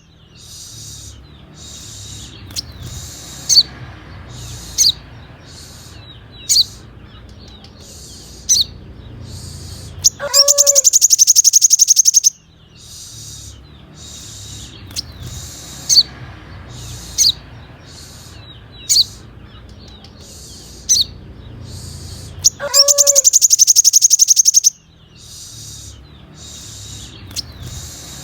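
Sunbird song played as a tutoring loop: a loud, very high, rapid trill lasting about two seconds, twice, with single sharp high chips every second or two in between. The same phrase repeats about every 12 seconds.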